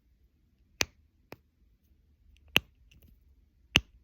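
Push-popper fidget toy being pressed down, giving three sharp pops spaced one to two seconds apart, with a fainter click after the first.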